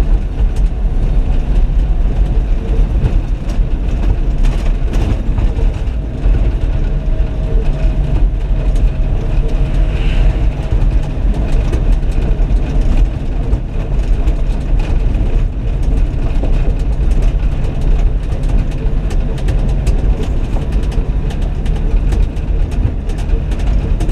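Ford F-700 dump truck driving on a gravel road, heard from inside the cab: a steady low engine drone with frequent sharp rattles and knocks from the truck and the gravel.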